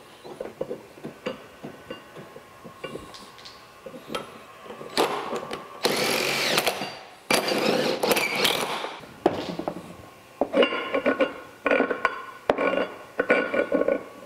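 Cordless power driver spinning a long threaded steel adjusting screw into the wedge block of a locomotive connecting-rod strap. Light metal clinks come first. Then the driver runs in two long pulls from about five seconds in, its motor whine shifting in pitch, followed by several shorter bursts near the end.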